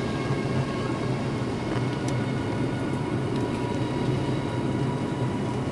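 Steady drone of an airliner cabin: engine and airflow noise heard from inside the plane, a constant low rumble with faint steady tones above it.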